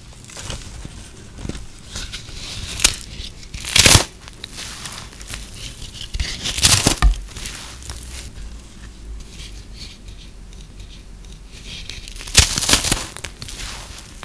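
Brittle microwave-puffed soap crunching and crumbling as hands break it apart. Soft crackling runs throughout, with louder crunches about four times.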